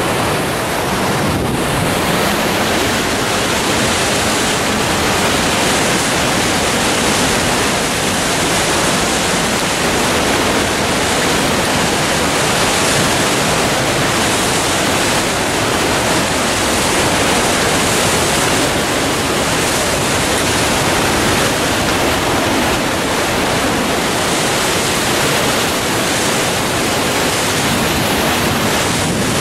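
Whitewater rapids of the Merced River rushing over boulders, a loud, steady wash of water noise that does not change.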